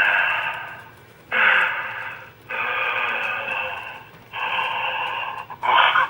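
A man making a run of long, breathy hissing noises with his voice, about four drawn-out exhalations with short breaks between them.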